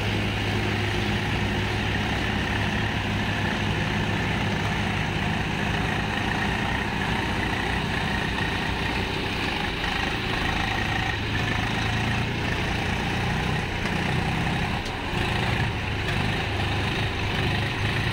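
Several Swaraj diesel tractor engines running steadily as they pull a sand-laden trailer out of mud.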